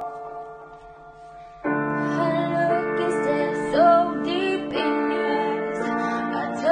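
A young woman singing over a piano backing. The piano plays alone at first; the backing turns suddenly fuller and louder about two seconds in, and her voice comes in with it.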